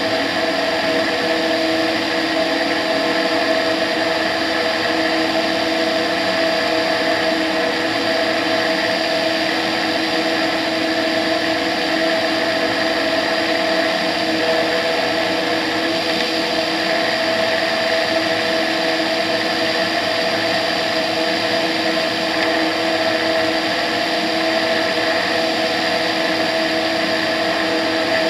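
Tetras ultralight's engine and propeller droning steadily in cruise flight, with the rush of airflow over a camera mounted outside the fuselage.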